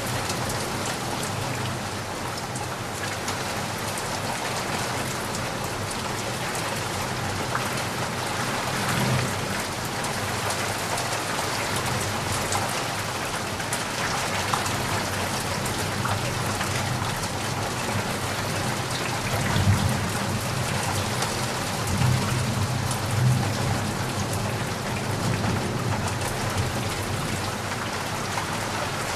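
Heavy rain falling steadily, with low thunder rumbling a few times, once about nine seconds in and again through the second half.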